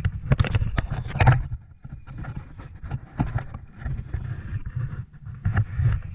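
Wind buffeting a GoPro's microphone on a kayak at sea, a loud, uneven low rumble, with irregular knocks and splashes, a cluster of them near the start and more around the middle and end.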